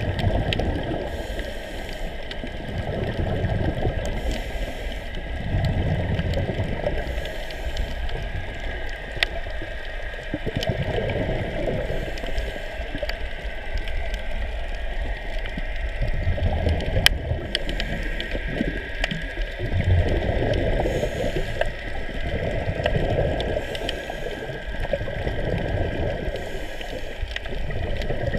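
Underwater ambience: a steady, muffled rush of water that swells and fades every few seconds, with a few faint clicks.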